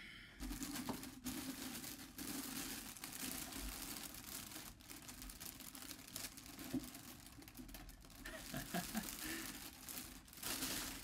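Plastic biohazard bag crinkling and rustling continuously as it is handled and pulled open by hand.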